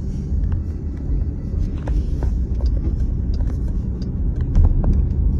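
Steady low rumble of a car driving, heard from inside the cabin: engine and tyre noise on the road, with a scattering of light ticks.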